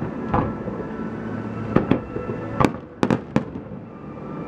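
Aerial fireworks bursting during a pyrotechnic show finale: a string of sharp bangs at uneven intervals, several in quick succession from about two to three and a half seconds in, over the continuous noise of the display.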